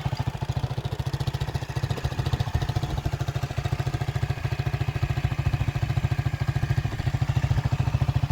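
Honda Titan motorcycle's single-cylinder four-stroke engine idling with a steady, even beat, freshly rebuilt with a new connecting rod, con-rod bearings and cylinder parts, the earlier rod knock and tappet noise gone.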